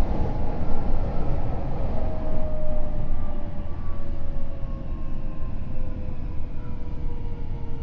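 Tokyo Metro N05 series electric train with Hitachi IGBT VVVF drive running on rails, its traction motor and gear whine slowly falling in pitch as the train slows, over a steady wheel-on-rail rumble. This car has an unusually prominent high motor tone, which the uploader suspects comes from traction motors swapped in from the 15000 series.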